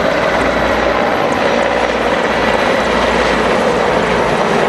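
Military helicopter in flight: steady, continuous rotor and turbine engine noise.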